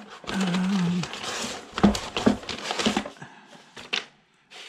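Paper and plastic packaging rustling and crinkling as an instruction sheet is pulled out of a cardboard box, with a brief low hum near the start and a single click near the end.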